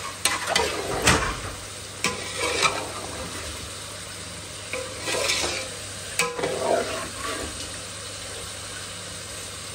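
Spoon stirring and scraping a pot of chicken and potatoes frying in spiced masala for biryani. The spoon knocks against the pot several times over a steady sizzle.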